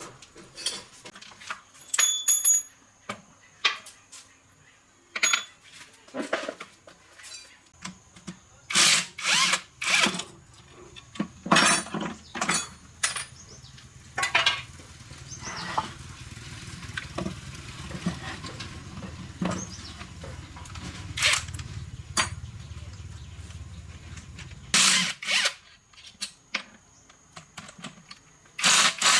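Workshop work on metal parts: repeated sharp clicks, knocks and scrapes of tools. A small electric power tool runs steadily for most of the middle stretch, starting about eight seconds in and stopping near the end.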